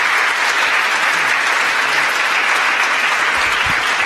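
Large audience applauding, many people clapping steadily at once.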